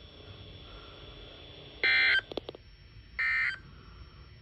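Two short bursts of Emergency Alert System digital data tones from a NOAA Weather Radio broadcast: the End-of-Message code that closes a severe thunderstorm warning. Each is a harsh, buzzy chirp about a third of a second long, the pair about a second and a half apart, over faint radio hiss.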